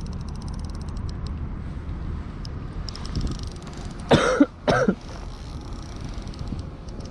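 A man coughs twice, about four seconds in and again half a second later, over a steady low rumble of wind on the microphone. Shortly before, there is a brief run of fast fine ticking.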